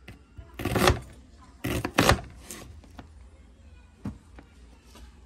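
Kitchen knife slicing a white onion over a plastic cutting board: two louder scraping cuts in the first two seconds, then a few light taps and knocks of the blade and board.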